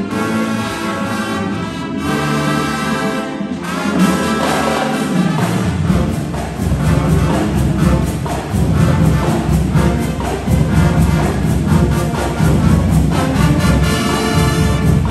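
High school marching band playing. The brass holds chords at first, then low drums come in about four seconds in, and the full band plays on over a steady drum beat.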